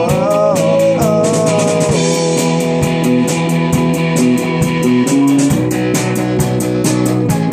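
Live rock band playing: a man sings for about the first two seconds over electric guitar and drums, then the guitar carries on without the voice, with the drums keeping a steady beat.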